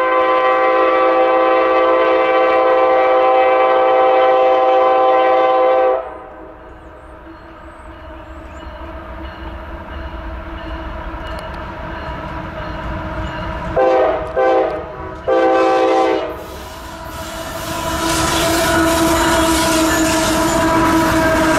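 Multi-chime air horn of a CSX intermodal freight's lead diesel locomotive at a grade crossing. It sounds one long blast, then three short blasts about 14 seconds in. Near the end the locomotives pass close by with a loud steady rumble of diesel engines and wheels on rail.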